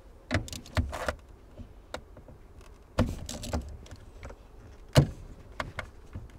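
Socket wrench on a long extension working the 10mm nut of a car battery's terminal clamp: irregular metallic clicks and knocks, with a cluster about three seconds in and the loudest knock about five seconds in.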